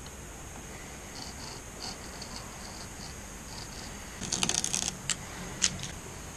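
Craft knife blade scoring masking tape on a fiberglass deck: faint light scratching, then a short louder spell of scraping and rustling about four seconds in, with a couple of sharp clicks.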